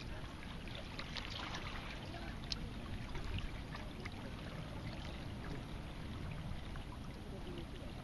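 River water lapping and trickling against a stone bank: a steady faint wash with many small scattered clicks and splashes over a low rumble.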